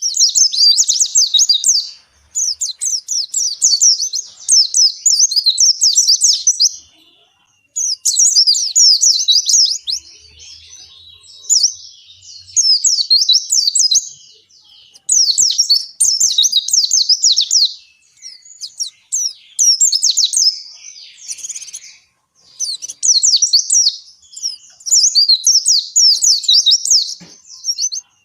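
White-eye (pleci, Zosterops) singing a long, rapid, high-pitched twittering song in bursts of a few seconds, with brief pauses between phrases.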